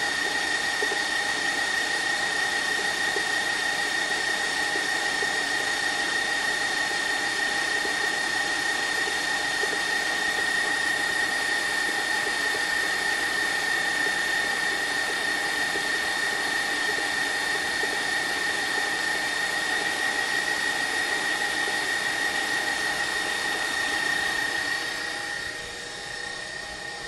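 Electric stand mixer running steadily, its motor giving a constant high whine over a whirring hum. Near the end the sound drops off sharply in level.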